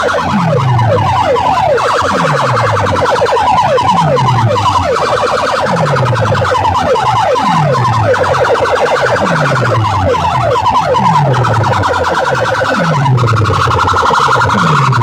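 Large DJ sound system playing a competition track at high volume: electronic siren and alarm effects over a falling bass sweep that repeats about every second and a quarter. Near the end the chirping alarm tones give way to a steadier warbling siren.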